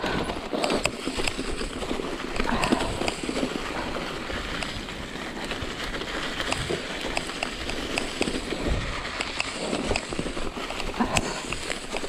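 Mountain bike rolling downhill over a leaf-covered forest trail: a steady rush of tyres on the ground with many short, irregular knocks and rattles as the bike goes over bumps.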